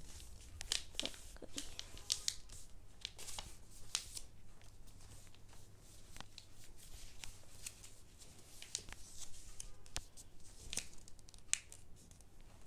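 Paper being folded and creased by hand: irregular rustling and crinkling with small sharp crackles throughout.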